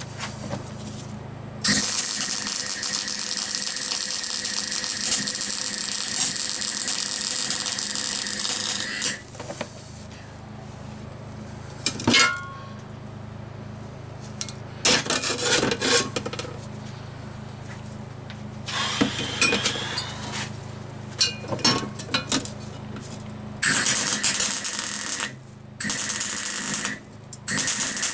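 A metalworking tool runs in loud, steady hissing stretches while a steel bracket is fabricated: one run of about seven seconds, then three shorter runs near the end. Between the runs, pieces of metal are knocked and clinked as they are handled.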